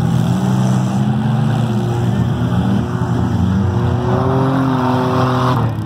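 Several demolition derby cars' engines running and revving together, a mix of overlapping engine notes that rise and fall in pitch, with a climbing rev in the second half.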